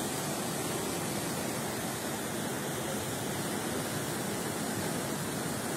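Fast muddy floodwater rushing through a street, a steady unbroken rush of water noise.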